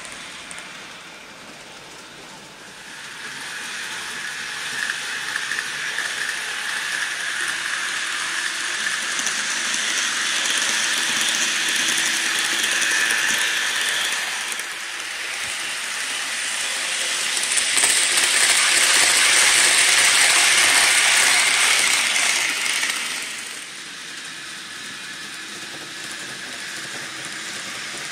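Poppondetta's N-gauge model of the Tobu 500 series Revaty running on the track: a high motor whine over the rattle of its wheels on the rails. It grows louder as the train comes close, is loudest past the middle, then falls away suddenly a few seconds before the end.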